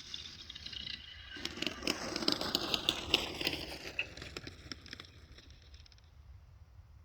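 Radio-controlled Spitfire model's electric motor winding down, its whine falling in pitch, with a run of rattles and clicks. It dies away about six seconds in.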